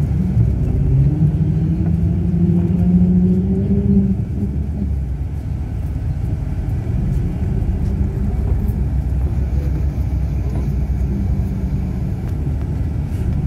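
Steady low engine and road rumble of a moving vehicle. Over the first few seconds an engine note rises slowly in pitch, then it settles back into the even rumble.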